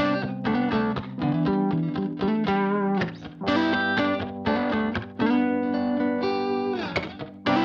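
Background music led by a guitar, with plucked and strummed chords in a steady rhythm.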